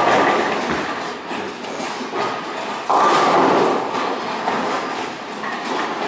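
Bowling pins crashing and clattering as a ball hits them at the start, then a second sudden crash about three seconds in. Between the crashes come the rumble and clatter of rolling balls and pinsetter machinery.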